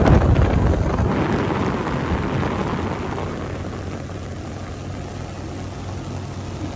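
Boat motor running with a steady low hum, under wind rushing on the microphone. The rush is loudest at the start and eases off over the first few seconds.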